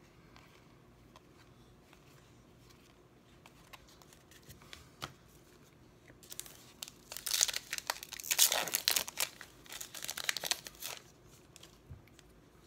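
A foil trading-card pack torn open and its wrapper crinkled, a loud crackle lasting about five seconds from about six seconds in. Before it come faint clicks of cards being handled.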